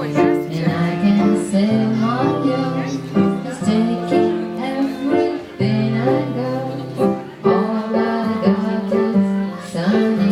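Music played on string instruments: a melody of held notes changing every second or so.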